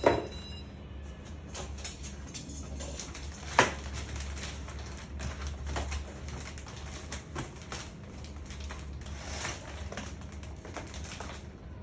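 Crinkling and rustling of inflatable air-column plastic packaging being handled and pulled at, a run of small irregular crackles with one sharp snap about three and a half seconds in.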